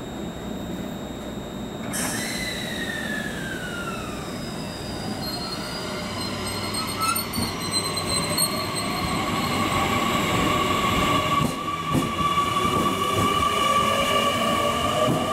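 JR Kyushu 885-series electric limited express pulling away from the platform. Its motor whine sets in about two seconds in and then climbs steadily in pitch as the train gathers speed, over the rumble of wheels on the rails.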